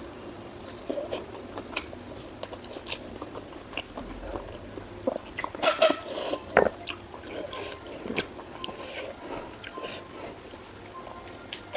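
Close-miked chewing of pork and rice, with wet mouth clicks and smacks. A louder run of bites and chewing comes a little past the middle.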